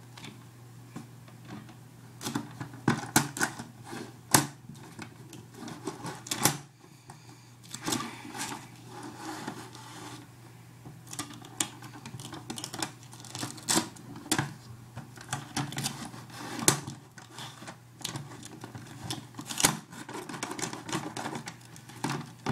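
Duct tape being handled and cut by hand: irregular crackles, clicks and snips as strips are peeled, folded and pressed. A steady low hum runs underneath.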